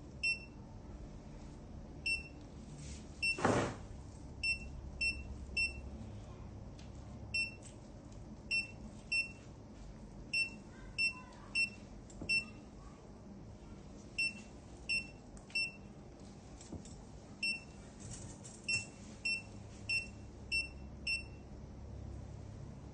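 Short high electronic beeps from an anaesthesia patient monitor, sounding in runs about twice a second with gaps between, over a low steady hum. A brief loud noise breaks in about three and a half seconds in.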